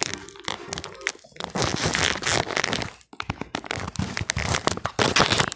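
Crackling, rustling handling noise from the phone's microphone being rubbed and gripped by hand as the phone is moved around.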